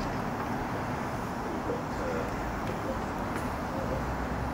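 Wren-class narrow-gauge steam locomotive standing at rest, giving a steady low hiss of steam over a rumble, with faint voices in the background.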